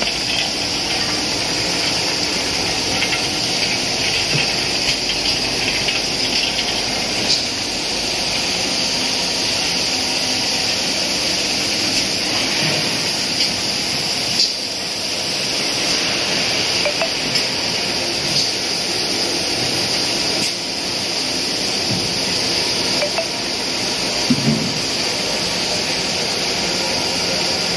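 Cashew peeling machine running with a steady, loud, hissing rush of machine noise, with a few faint light ticks.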